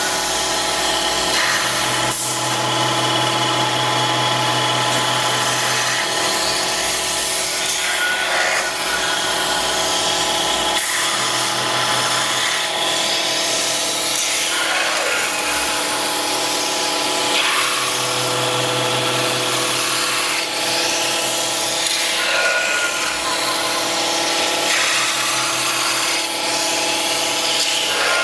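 Metalworking lathe turning a large flared metal workpiece: a steady machine whine with the hiss of the tool working against the spinning metal. A lower hum swells in and fades three times.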